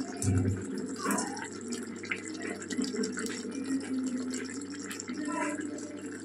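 Chicken curry gravy bubbling and sputtering as it simmers in a wok, a steady run of small pops and ticks. A low thump comes about half a second in.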